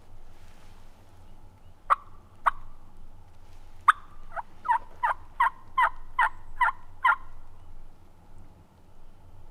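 Turkey calling: two short sharp notes, then about a second and a half later a run of about eight evenly spaced yelps, two to three a second.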